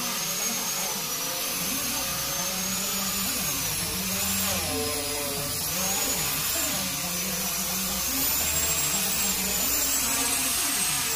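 Electric angle grinder fitted with a sanding disc, running steadily as it sands teak wood, its high motor whine rising and falling in pitch as it is worked along the wood.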